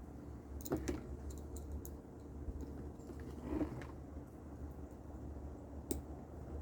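Scattered small clicks and knocks of hard plastic parts and a screwdriver being handled while a vacuum's circuit board is fitted back into its housing, with a soft rustle near the middle, over a low steady hum.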